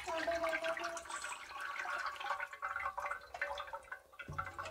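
Thin curd-and-gram-flour kadhi mixture pouring in a stream into a steel pot already full of the same liquid, a steady wet splashing pour that stops about four seconds in.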